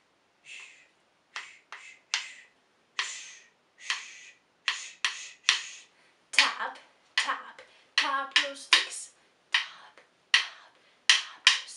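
Two wooden sticks tapped together in a steady run of sharp clicks, about two a second, with some quick double taps and a short ring after several strikes.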